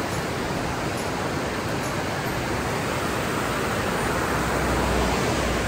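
Steady wind noise on the microphone: an even rushing hiss with a low rumble that swells a little near the end.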